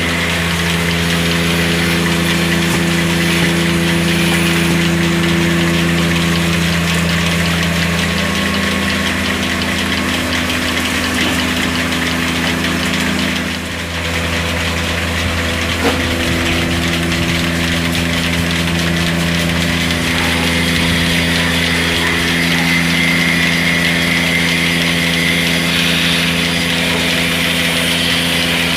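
An engine or motor running steadily, a constant droning hum, with a brief dip about halfway through and a single click a couple of seconds later.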